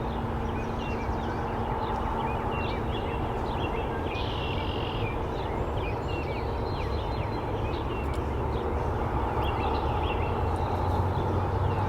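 Songbirds chirping in a dawn chorus of many short, quick notes, with one buzzy trill of about a second a little after the fourth second, over a steady low rumble.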